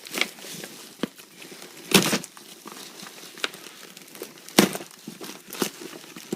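Parcel packaging being handled and pulled open: irregular crinkling and rustling with clicks, and two louder crackles about two seconds and four and a half seconds in.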